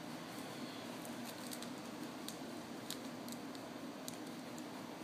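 Steady low room hum with a scatter of faint, short ticks from small handling sounds: fingers moving small polymer-clay charms about on a paper towel.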